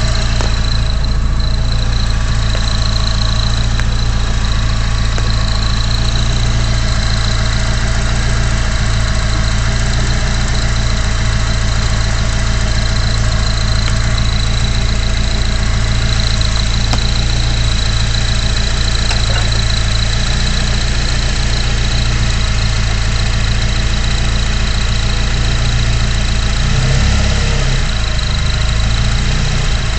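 Car engine idling steadily with a faulty turbocharger that the owner says is very wrong, a steady high whine running over the engine sound. The engine note shifts briefly near the end.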